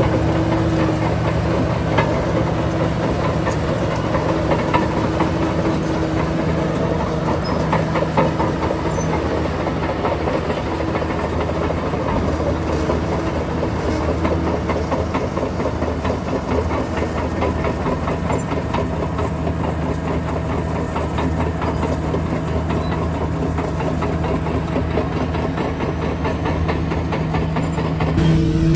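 Heavy diesel earthmoving machinery running steadily, with a continuous dense rattle over the engine note.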